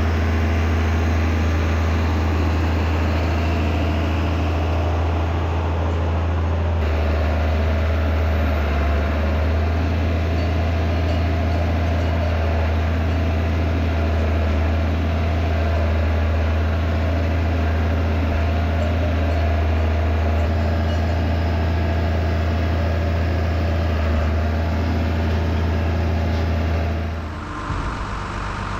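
Tractor engine running steadily with a deep hum, dropping in level about a second before the end.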